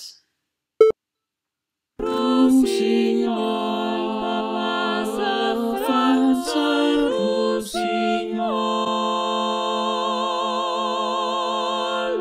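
Synthesized four-part choir (soprano, alto, tenor, bass) from a singing-voice synthesis system, singing in harmony, with chords changing every second or so and then long held chords with vibrato. It is preceded by a single short beep about a second in.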